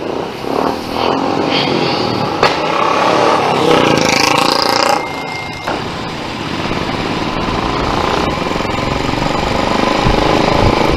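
Motorcycles pulling away together as a group ride sets off. From about six seconds in, the rider's own motorcycle settles into a steady run, its engine mixed with road and wind noise.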